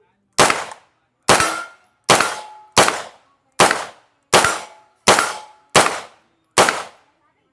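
Nine gunshots fired one at a time at a steady pace, about one every 0.8 seconds. Several are followed by a short metallic ring.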